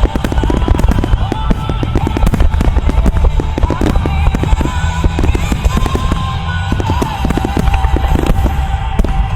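Rapid barrage of aerial firework shells bursting, many sharp bangs a second, with music playing alongside.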